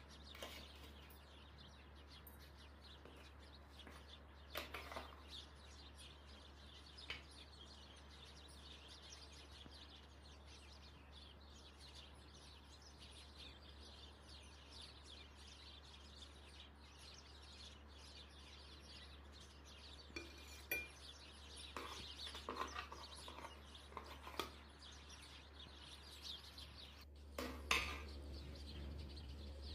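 Metal fork clinking and scraping now and then against a ceramic plate while cutting into a slice of flaky börek, the loudest clink near the end. Under it runs a faint steady hum.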